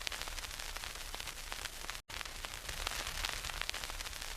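Radio static: a steady hiss full of fine crackling clicks, cutting out for an instant about two seconds in.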